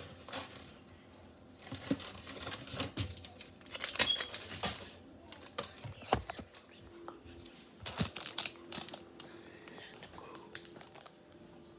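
Crinkling and rustling from something handled close to the microphone, coming in irregular bursts with many scattered clicks.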